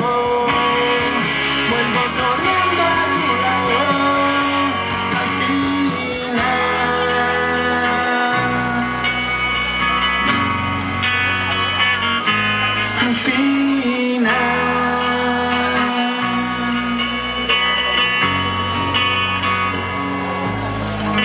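Live rock band playing electric guitars, bass guitar and drums, heard from the audience.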